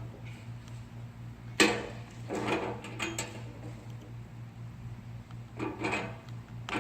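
Handling noises while wire ends are fed through and twisted into a scale's cable terminal: a sharp click about a second and a half in, then short scrapes and rattles of small metal parts, over a steady low hum.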